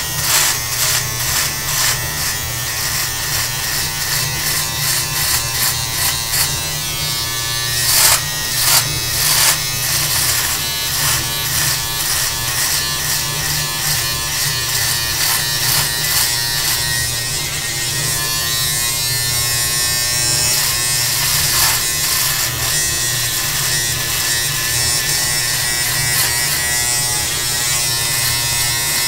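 Handheld electric beard trimmer running with a steady buzz, crackling as its blades cut through a long full beard, in strokes that come thickest about eight to ten seconds in.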